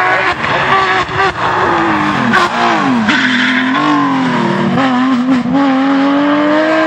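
Porsche 911 GT3 rally car's flat-six engine at full effort. The revs waver, drop sharply about two and a half seconds in, then climb in one long, steady pull.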